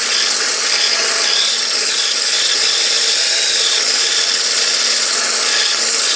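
Electric hand blender with a whisk attachment running steadily, beating eggs into creamed butter and sugar for cake batter.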